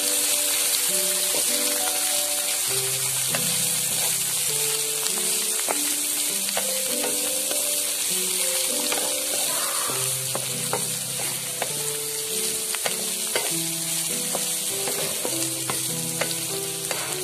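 Chopped vegetables and chicken sizzling in a hot pan as they are stir-fried, with the spatula scraping and clicking against the pan again and again. Soft background music with held notes plays underneath.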